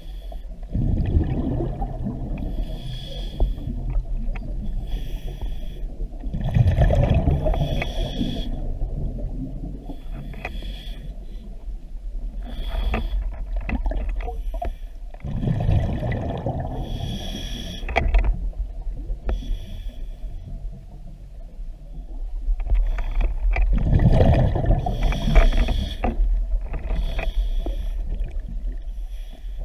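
Scuba diver breathing through a regulator underwater: four long surges of exhaled bubbles, several seconds apart, with a quieter hiss and clicking between breaths.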